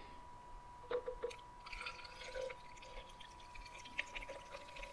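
Carbonated cola poured from a plastic bottle into a glass jar: a faint trickle and fizz of the soda filling the jar, with a few small clicks of bottle against glass.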